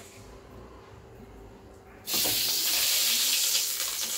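Ghee sizzling as it is spooned into a hot aluminium kadai: a steady hiss that starts suddenly about halfway through.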